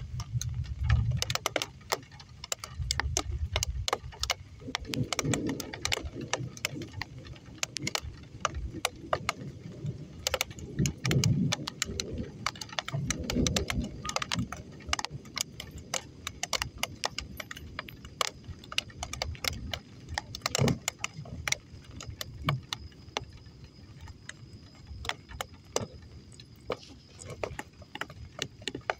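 Light drizzle: scattered raindrops ticking irregularly on a nearby surface, several a second, over a low rumble in the first half. A faint steady high tone comes in about halfway.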